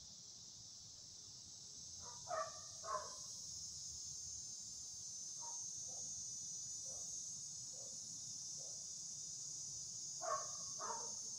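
Dog shut alone in a room with the window open, barking repeatedly: two sharp barks about two seconds in, five fainter, lower single barks spaced about a second apart through the middle, and two more sharp barks near the end.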